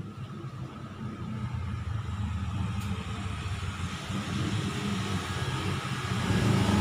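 Low rumble of road traffic, a motor vehicle growing louder near the end as it comes closer.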